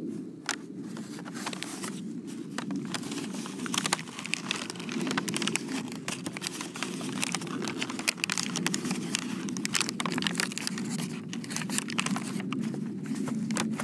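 Brown paper bag of pistachios crinkled and rustled by hands, a dense, irregular crackling, over a steady low background rumble.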